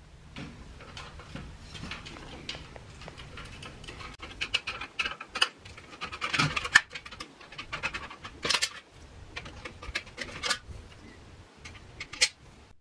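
Phillips screwdriver backing out screws from a sliding screen door's bottom rail: irregular scraping and small clicks of the tool against the screw heads and frame. There are a few sharper clicks, the loudest around the middle and one near the end, as the old roller wheel assembly comes free.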